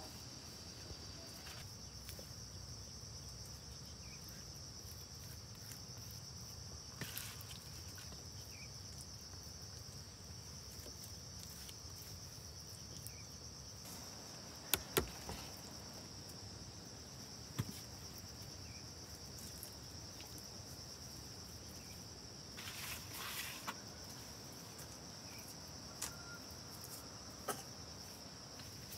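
Steady high-pitched insect drone. It is overlaid by a few scattered sharp knocks and clicks, two close together about halfway through, and a brief rustle about two-thirds of the way in.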